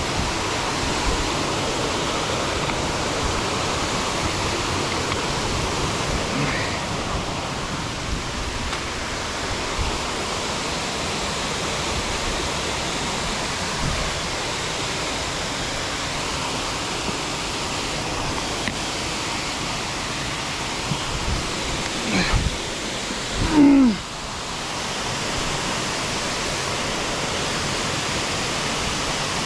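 Steady rush of a mountain stream or waterfall. A brief louder sound cuts in about three-quarters of the way through.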